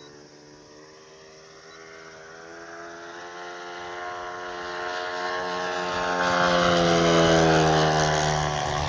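Single-cylinder OS 91 glow engine of a radio-controlled Poker biplane in flight, growing steadily louder as the model approaches, loudest about seven seconds in, then its pitch dropping slightly as it passes and begins to fade.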